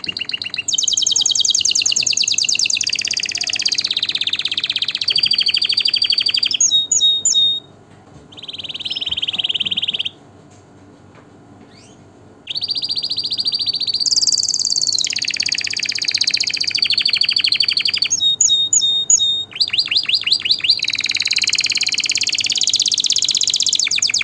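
Domestic canary singing: long high-pitched phrases of fast trills and rolls, broken midway by a short phrase and a pause of about two seconds before the song starts again.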